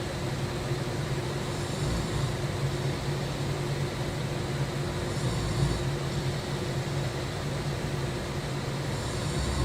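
A person snoring loudly: a low rattling drone, with a breathy rush about every three and a half seconds as each breath cycles.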